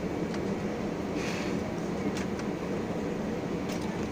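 Steady low rumble inside the cabin of an Airbus A320-216 taxiing, with its engines at idle. A few light rattles can be heard over it.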